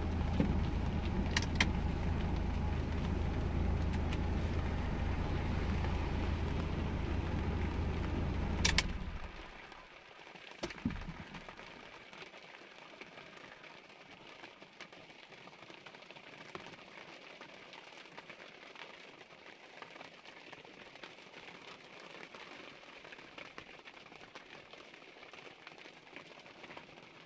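Mazda MX-5 1.8's four-cylinder engine idling steadily, heard from inside the cabin, switched off about nine seconds in with a click. A single thump follows a second later, then rain pattering faintly on the car's roof and windscreen.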